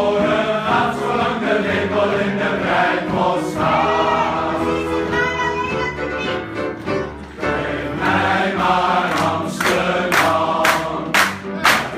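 Large men's choir singing with upright piano accompaniment. About nine seconds in, the singers start clapping in time, sharp claps about twice a second over the singing.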